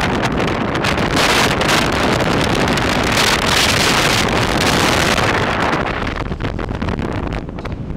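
Wind buffeting the microphone along with the road noise of a moving car, loud and steady, easing a little near the end.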